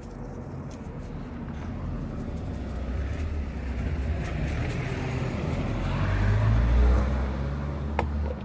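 A motor vehicle's low engine rumble, growing steadily louder and peaking about seven seconds in.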